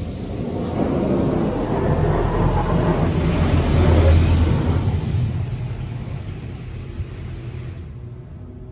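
A WashWorld Razor touchless car wash sprays water onto the car, heard from inside the cabin. The rushing spray builds to its loudest about four seconds in, fades as the spray moves along the car, and its hiss cuts off sharply near the end, over a steady low machine hum.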